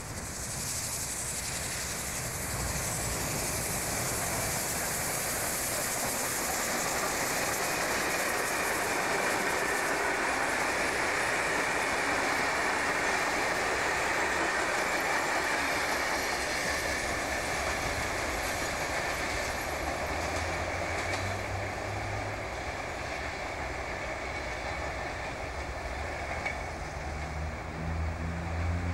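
Steam-hauled passenger train behind NSW 36 class 4-6-0 locomotive 3642 passing at speed: a steady rush of wheels and rail clatter that builds over the first few seconds, stays loud while the carriages go by, and eases as the train draws away.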